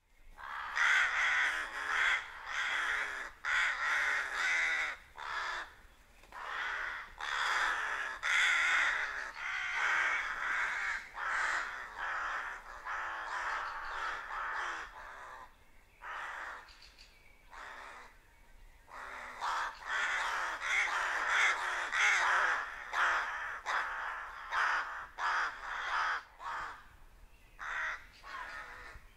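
A flock of rooks cawing, with many harsh calls overlapping. The calling thins out for a few seconds past the middle, then builds up again.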